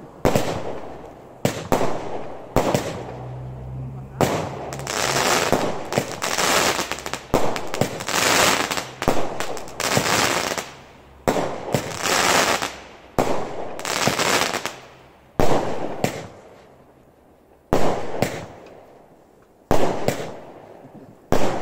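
Firework King "666" barrage cake firing, a rapid run of launch bangs and aerial bursts. From about four seconds in until about fifteen seconds the bursts run together into long stretches of dense crackling. After that come single bangs roughly every two seconds.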